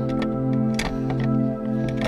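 Instrumental background music with sustained steady tones and a few light ticks.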